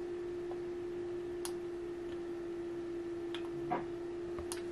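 Steady electrical hum from the powered-up amplifier test setup, one constant mid-pitched tone, with a few sharp clicks spread through it.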